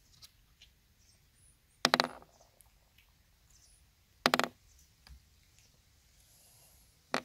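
Three 9 mm steel balls dropped one at a time onto a wooden table, each landing with a sharp click and a brief rattle of bounces: about two seconds in, just after four seconds, and near the end.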